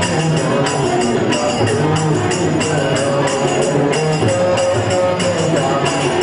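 Devotional song with a man singing, harmonium accompaniment, and a steady jingling percussion beat.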